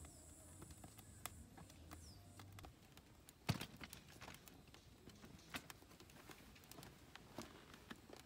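Wood fire crackling in a pipe wood-gas camp stove: faint, irregular pops and snaps, with one sharper pop about three and a half seconds in.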